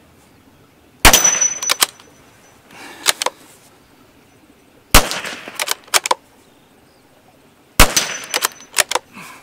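Three .22 LR rifle shots from a Savage B22 bolt-action rifle, about a second in, near the middle and near the end. Each is followed by a few lighter mechanical clicks as the bolt is worked. A faint high ring comes after the first and third shots.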